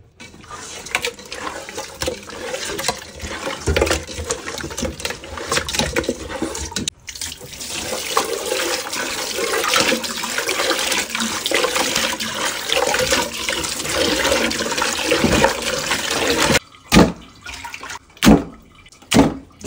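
Tap water running into a metal pot and splashing as raw katla fish pieces are rubbed and washed by hand, with a brief break about seven seconds in. The flow stops near the end, followed by a few short, sharp sounds.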